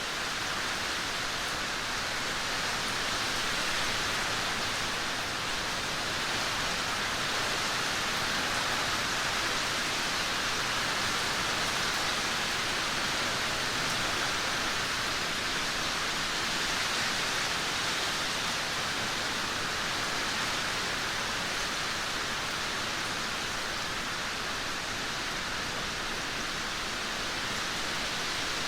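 Heavy downpour of rain, a dense, steady hiss with no single drops, thunder claps or gusts standing out.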